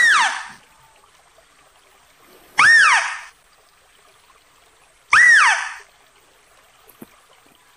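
Philippine mouse-deer (Balabac chevrotain) calling: a call that rises then falls in pitch, repeated about every two and a half seconds, three times, with a fourth starting at the very end.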